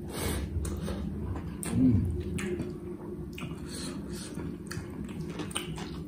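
Close-up wet chewing and mouth clicks while eating rice and buffalo curry by hand, with fingers squishing and mixing the rice on the plate. A short low hum from the eater about two seconds in is the loudest moment.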